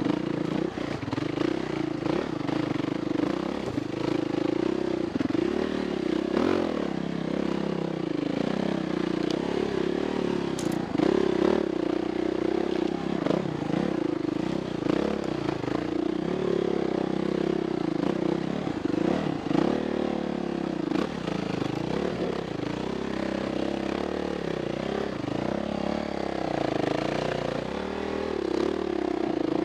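Off-road motorcycle engine running while being ridden over a rough trail, its revs rising and falling with the throttle.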